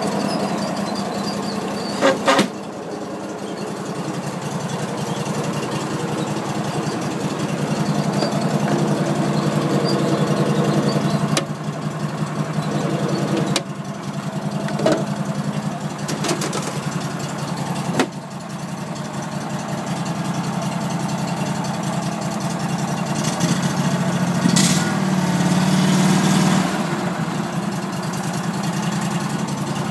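The engine of a C800HE ride-on mower running at a steady speed, with a few sharp clicks or knocks scattered through. The sound swells briefly about three-quarters of the way through.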